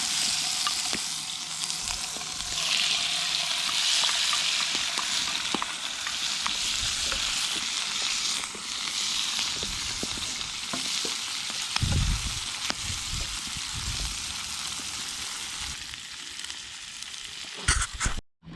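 Squid frying in a hot pan over a fire pit's coals: a steady high sizzle with scattered sharp pops. There are a few low thuds about twelve seconds in, and the sizzle cuts off abruptly near the end.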